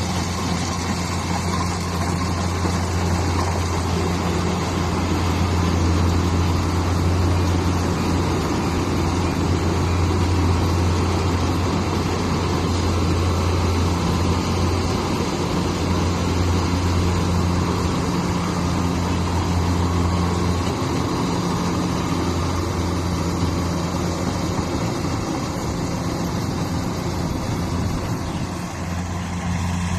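Engine of rice-harvesting machinery running steadily: a loud, even low drone that dips slightly near the end.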